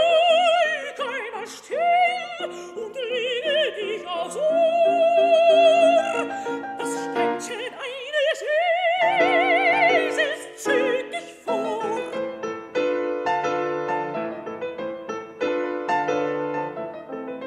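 Classical art song: a soprano sings with a wide vibrato over piano accompaniment. About eleven seconds in the voice stops and the piano plays on alone in short, detached chords, the song's closing piano postlude.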